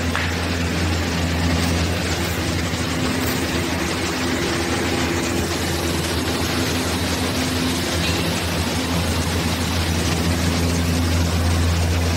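A machine motor running steadily: a constant low hum with a few steady higher tones over a broad rushing noise.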